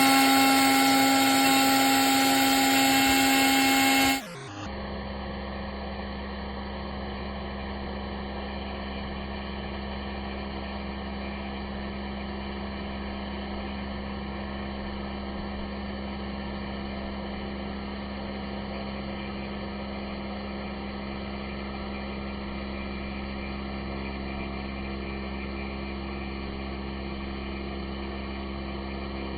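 CNC router's spindle and machine running steadily, a constant whine with fixed pitches. About four seconds in the sound cuts abruptly to a quieter, duller, unchanging hum.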